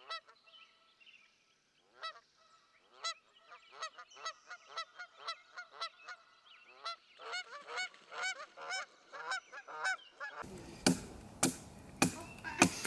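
Geese honking, scattered calls at first that thicken into a busy flock chorus a few seconds in. Near the end the sound cuts to a few sharp knocks as a stick of wood is worked by hand; these are the loudest sounds.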